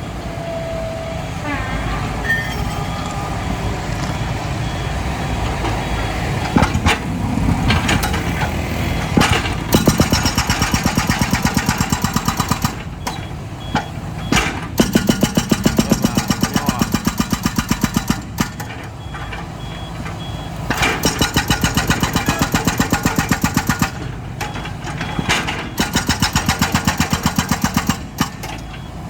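Excavator's diesel engine running and revving under digging load, rising into stretches of rapid even pulsing, with a few sharp metal knocks and an intermittent high beeping.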